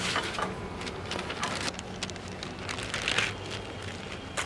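Newspaper rustling and crinkling as it is handled and folded, in irregular bursts.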